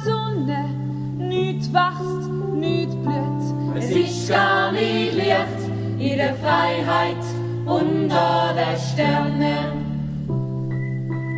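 Song with sung melody over held chords that change every second or so; from about four seconds in, several voices sing together.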